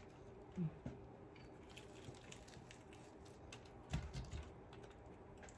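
Faint crackles of crispy fried-chicken breading being torn apart by hand, with a soft thump about four seconds in.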